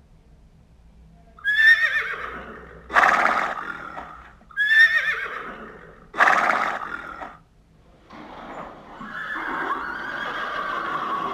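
Horse neighing: four loud whinnies about a second and a half apart, each starting high and fading off, then a longer, quieter call from about eight seconds in.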